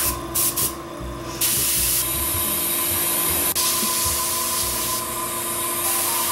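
A Paasche H airbrush spraying into a paper towel to test and clear it before painting. A few short puffs come first, then a steady spraying hiss from about a second and a half in, broken once briefly.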